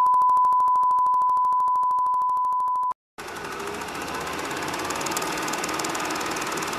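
A loud, steady high test tone, as played over TV colour bars, with a fast even flutter, cutting off abruptly about three seconds in. After a brief gap, an old cine film mechanism runs with a steady hiss and a rapid, even clatter.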